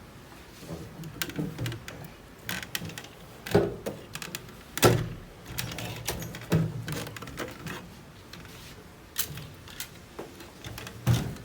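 Irregular clicks, knocks and clunks from a large vintage Olivetti typewriter with an aluminium case being handled and shifted about, with the loudest thuds about three and a half, five and six and a half seconds in and again near the end.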